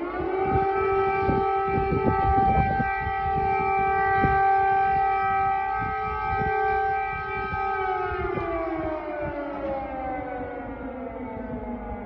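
Civil-defence air-raid siren holding one steady tone with a rich stack of overtones, then winding down and falling in pitch from about eight seconds in.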